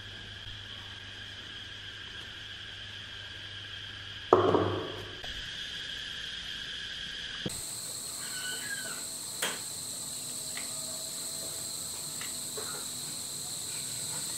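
Insects trilling steadily at a high pitch, the trill shifting higher about halfway through, with one loud knock about four seconds in.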